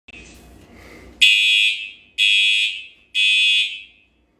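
Hotel fire alarm sounding its evacuation signal: loud, high-pitched horn blasts in a group of three, about one a second, starting about a second in and followed by a pause. This is the repeating three-pulse temporal pattern. The alarm seems to have been set off by cooking smoke in a guest room reaching the sprinklers.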